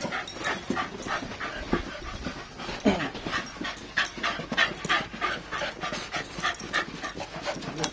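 A Shiba Inu and a Boston terrier–French bulldog mix at play, panting quickly and rhythmically, with a couple of short whining sounds about two and three seconds in.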